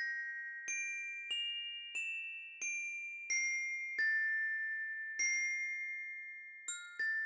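Glockenspiel playing a slow, high melody of single struck notes, each ringing out and fading before the next, about nine notes in all.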